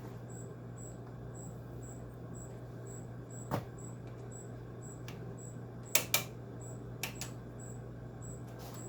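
Steady low hum with a few sharp clicks and knocks: one about three and a half seconds in, two close together about six seconds in, and a lighter one a second later.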